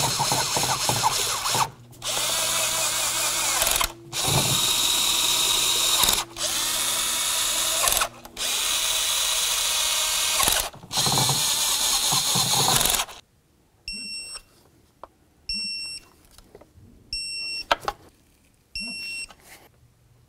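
Power driver running the intake manifold bolts down, six runs of about two seconds each with short pauses between. After about thirteen seconds an electronic torque wrench takes over, giving short high beeps about every second and a half as each bolt is brought to torque.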